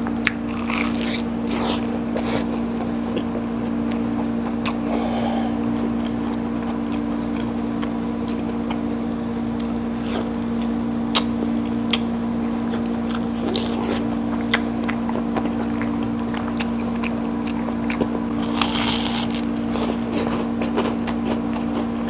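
Chewing and crunching on crisp deep-fried shrimp toast (menbosha), with sharp little crackles scattered throughout, over a steady low mechanical hum.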